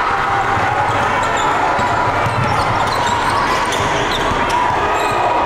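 Basketball being dribbled on a hardwood gym floor, with sneakers squeaking, over the steady din of a crowd in the stands.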